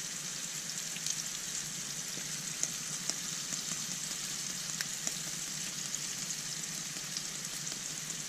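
Floured brook trout fillets frying in hot canola oil in a frying pan: a steady sizzle with scattered small pops and crackles.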